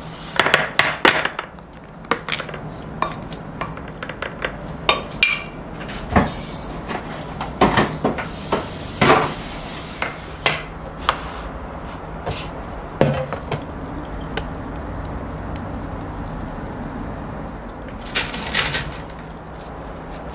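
Metal kitchen tongs clicking and scraping against a frying pan and against plastic and glass food containers as food is dished out, with irregular sharp clacks throughout. A steady low hum runs underneath.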